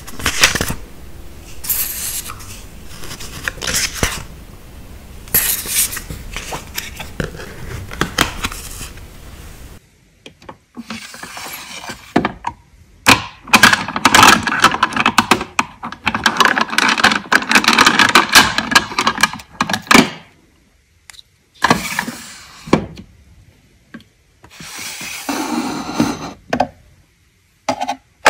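Close-up sticker-journaling handling sounds, paper and sticker sheets being worked by hand. For the first ten seconds there are crisp clicks and snips at intervals, then after a short pause several seconds of dense crackling rustle, then scattered clicks.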